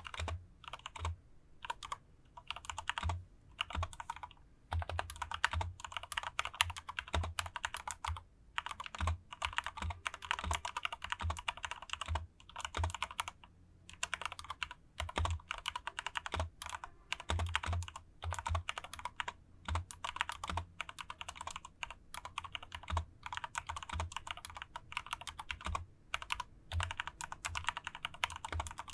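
Dareu A87 mechanical keyboard with Cherry MX switches being typed on quickly, the key clicks coming in fast runs broken by short pauses every few seconds.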